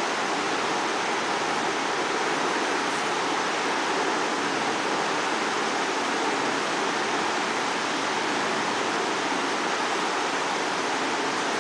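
A steady, even rushing hiss with no clicks or other events standing out.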